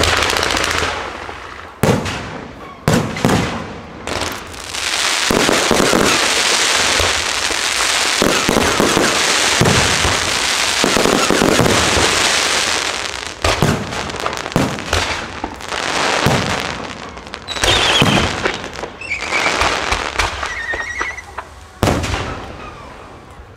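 Aerial fireworks show. Sharp bangs open the display, followed by a long stretch of dense crackling from about five to thirteen seconds in. After that come more separate bangs, with a few high gliding tones around eighteen to twenty-one seconds.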